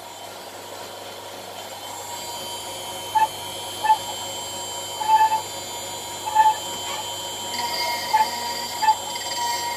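CNC router spindle whining steadily as its end mill cuts a pocket in an aluminium air-rifle receiver block, with short chirps from the cut about once a second from a few seconds in.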